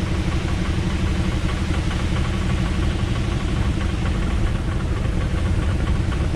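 Auto-rickshaw (tuk-tuk) engine running steadily.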